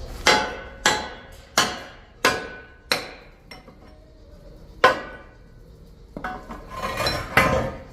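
Hammer striking steel plate: five ringing metallic blows about two-thirds of a second apart, a single blow a few seconds later, and a rougher clatter of metal near the end.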